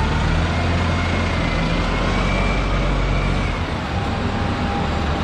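Red London double-decker bus with its diesel engine running as it drives along a city street, giving a low, steady engine note over street traffic noise.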